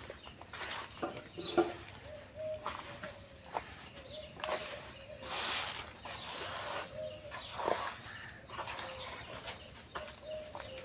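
Lumps of soft cement and dirt crumbling and snapping between the fingers: a few sharp breaks and a longer crumble about five seconds in. Behind them a chicken clucks over and over.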